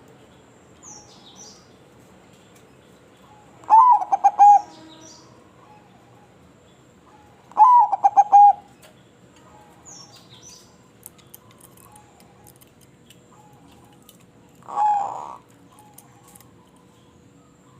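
Zebra dove (perkutut) singing: two loud rapid phrases of staccato coos about four seconds apart, each about a second long, then a shorter coo near the end. Faint high chirps from other small birds come between the phrases.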